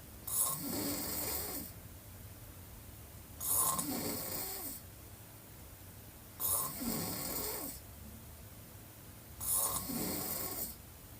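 A woman snoring with her mouth wide open: four snores about three seconds apart, each starting suddenly and lasting over a second.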